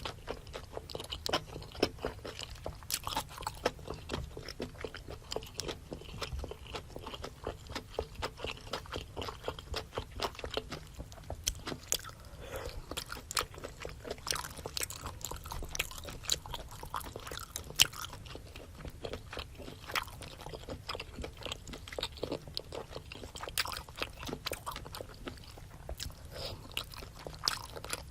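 Close-miked ASMR eating sounds: steady wet chewing with irregular crunches, bites and smacks, as of spicy seafood boil with octopus, shrimp and rice cakes.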